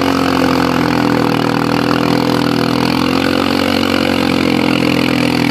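ATV engine running hard at high revs under heavy load as the quad churns through a deep mud hole, its pitch held fairly steady with slight wavering.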